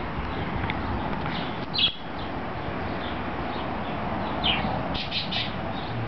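Small birds chirping in short, high calls, the loudest a little under two seconds in and a quick run of three about five seconds in, over a steady background hiss.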